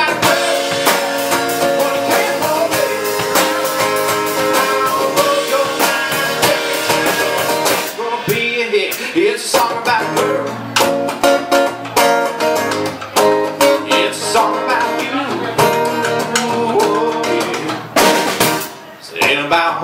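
Guitar and drum kit playing live country music, an instrumental stretch with no vocals.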